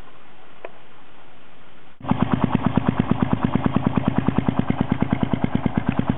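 Kawasaki KLR650's single-cylinder engine idling through a Two Brothers M7 exhaust fitted with a P1X power-tip quiet insert: an even, fast pulsing of about seven beats a second that comes in suddenly about two seconds in, after a faint steady hiss. It is still pretty loud.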